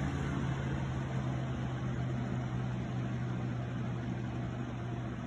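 1997 Lasko 3723 20-inch box fan running steadily on its medium speed setting: an even rush of air over a steady motor hum.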